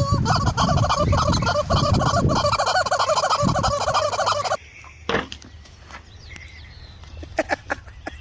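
A flock of poultry calling all at once, many wavering calls overlapping, which cuts off abruptly a little over halfway through. After that there are only a few quiet scattered clicks and knocks.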